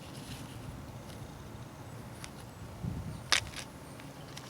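Handling noise from work on the tie rod: a soft bump about three seconds in, followed at once by one sharp click, with a few faint ticks over a low background rumble.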